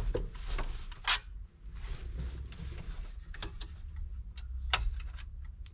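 Scattered light clicks and taps of small plastic parts being handled while swapping instrument-cluster indicator bulbs, about ten in all, over a low steady hum.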